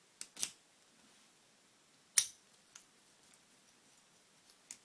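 Sharp metallic clicks from a padlock and its key being handled: a quick pair just after the start, a loud single click about two seconds in, light ticks, then another click near the end.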